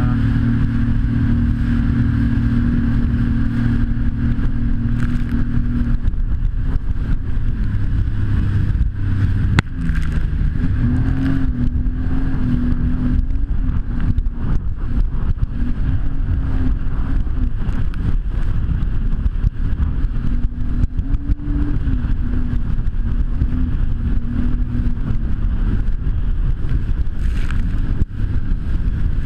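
Jet ski engine running, a loud steady drone that shifts up and down in pitch with the throttle from about six seconds in, with scattered knocks and bumps throughout.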